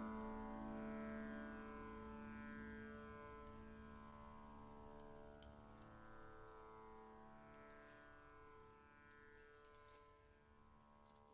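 Many santur strings ringing on together after the final strokes and slowly fading away. A few faint ticks can be heard in the second half.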